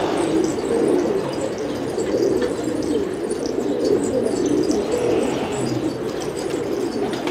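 Many domestic pigeons cooing at once, a steady overlapping chorus of low coos.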